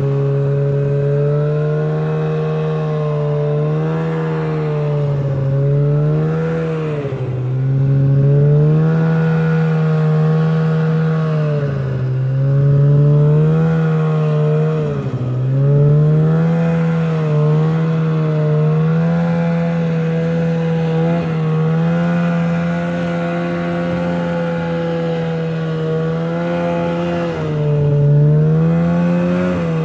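Polaris snowmobile engine running under throttle while riding across snow. Its pitch sags and picks up again several times as the throttle is eased and reopened.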